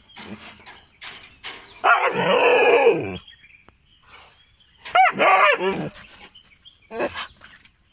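A chained Sippiparai hound gives two long, drawn-out barks that rise and fall in pitch, about two and five seconds in, with a few short clicks between them. This is an angry protest, demanding to be let loose.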